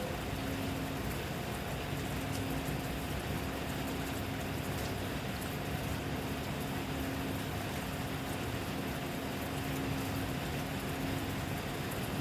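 Steady rain falling, an even hiss with scattered faint drop ticks, over a low steady hum like a running motor or engine.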